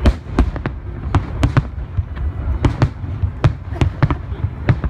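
Aerial firework shells bursting in quick, irregular succession: about a dozen sharp bangs over a continuous low rumble.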